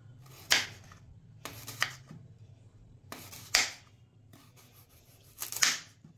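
Kitchen knife slicing a raw carrot diagonally: about five separate cuts at uneven intervals, over a low steady hum.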